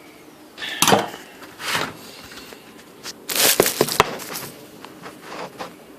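Clam shells clattering and scraping on a pan as they are handled: a few separate knocks, with a louder cluster of clinks a little past the middle.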